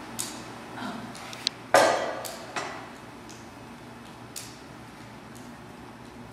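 Several knocks and clunks of a small wooden-topped table being handled and set down on a hard floor, one loud clunk about two seconds in followed by lighter taps.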